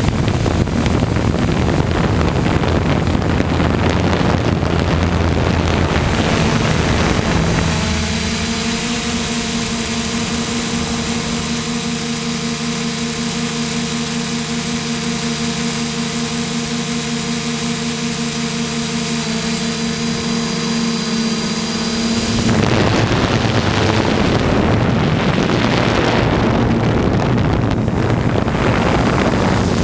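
Hexacopter's electric motors and propellers running in flight, heard from a camera mounted on the craft, with wind rushing over the microphone. About eight seconds in the sound settles into a steady hum of several pitches, which holds for some fifteen seconds before the rushing noise returns.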